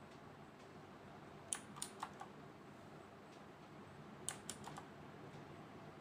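Keys of an MXGT7 mechanical keyboard with Outemu blue switches clicking, in two short groups of three or four presses: one about a second and a half in, the other just past four seconds. Faint.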